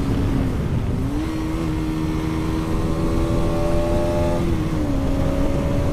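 Bajaj Pulsar NS200's single-cylinder engine running through an Akrapovic slip-on exhaust with its dB killer removed, heard from the rider's seat while riding. The engine note rises about a second in as the throttle opens, holds steady, then drops about four and a half seconds in.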